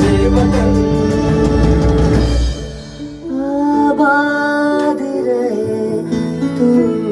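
Music from an electronic keyboard: a full arrangement with a steady beat that drops out about two and a half seconds in, leaving held chords and a slow melody line.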